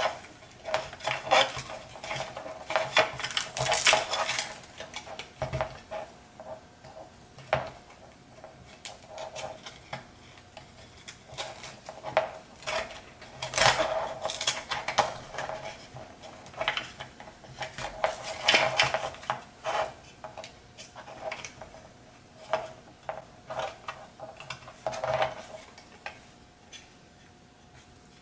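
Hard plastic drone canopy, battery and carbon-fibre frame handled by hand: irregular clicks, taps and scraping as the canopy is pressed and fitted over the battery and wires, in clusters with short pauses. A faint steady hum lies underneath.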